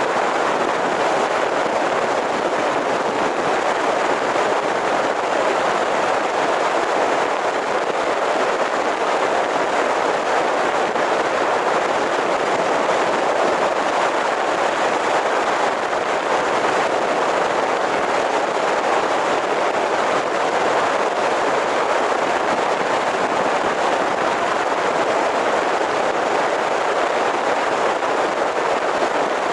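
Steady rushing road and wind noise of a car driving, with no distinct engine tone standing out.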